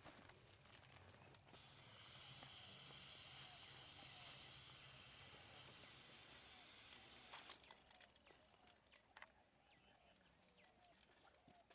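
Aerosol can of blue antiseptic fly-repellent spray being sprayed in one continuous hiss of about six seconds, starting about a second and a half in and cutting off suddenly.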